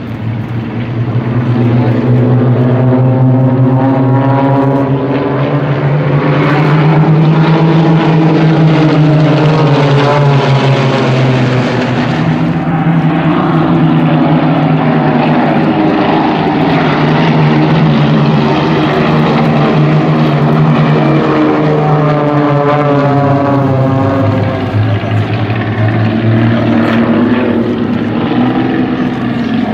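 Several single-engine propeller aerobatic planes flying in formation overhead, their piston engines running loud and continuous, the pitch sliding up and down as they manoeuvre and pass.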